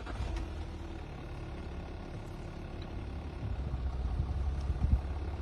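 A motor vehicle's engine running, a steady low rumble that grows slowly louder, with a few low thumps near the end.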